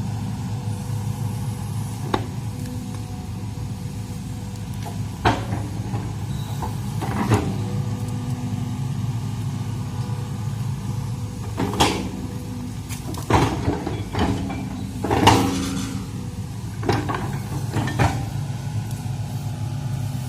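Hitachi hydraulic excavator's diesel engine running steadily, with about eight sharp, loud cracks and knocks scattered through, as the machine breaks and pushes over bamboo.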